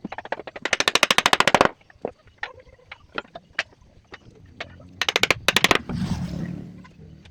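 A woodworking power tool rattling out two quick bursts of rapid sharp strikes, about sixteen a second: one at the start lasting under two seconds, and a shorter one about five seconds in. Scattered single knocks come between the bursts, and a hiss follows the second one.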